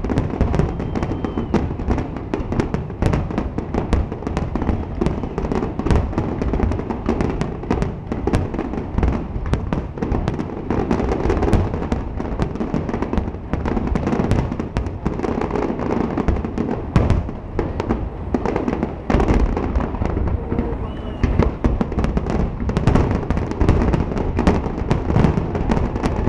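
Fireworks finale: a dense, unbroken barrage of shells bursting, many bangs a second overlapping with crackling.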